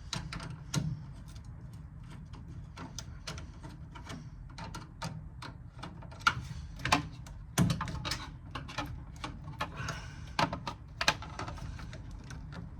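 Irregular clicks, taps and a few sharper knocks of hands and a tool working a tight collar on a radiator top hose, shifting it loose.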